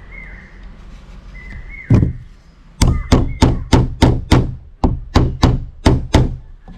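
Hammer driving nails into a wooden block through plywood: one blow about two seconds in, then a steady run of about ten blows, roughly three a second.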